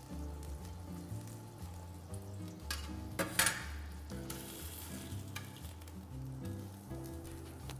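Background music with a stepping bass line, and about three seconds in a few sharp clicks and a short scrape as metal tongs lift prawns from a metal tray.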